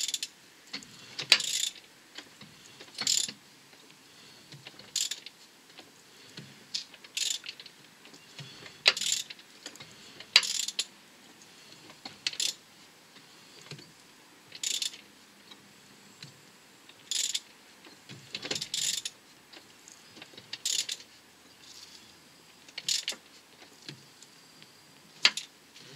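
Ratchet wrench turning the crankshaft of a Renault 1.5 dCi diesel engine by hand, heard as short bursts of ratchet clicks every second or two on each stroke.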